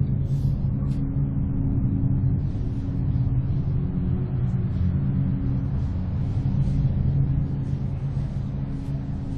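A steady low rumbling drone with several held low tones under it, the soundtrack of a video artwork.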